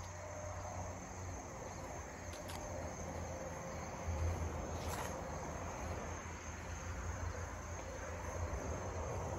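Crickets chirping steadily in a continuous high trill, over a low steady rumble, with a few faint clicks.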